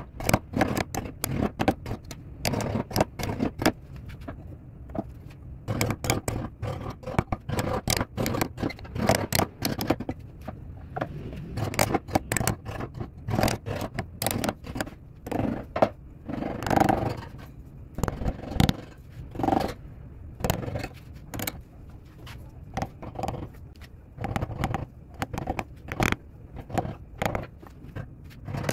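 Hand carving gouge cutting into a turned hardwood piece: a rapid, irregular series of short scraping cuts as chips are pared from the carved leaves, over a steady low hum.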